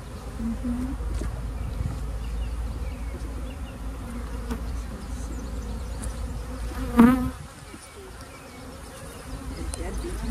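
Swarm of honeybees buzzing in a steady hum around open hive boxes as frames of bees are lifted out. About seven seconds in, a single bee buzzes briefly and loudly close by.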